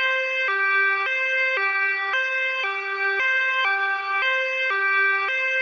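Ambulance siren sounding a two-tone hi-lo pattern, switching sharply back and forth between a higher and a lower note, each held about half a second.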